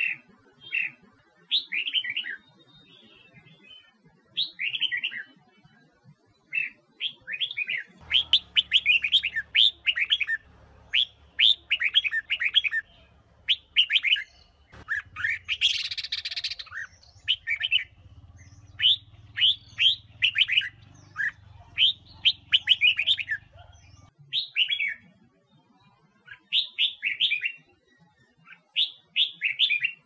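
Red-whiskered bulbul of the Huế strain singing: a stream of short, quick whistled phrases with brief gaps, coming more densely from about eight seconds in.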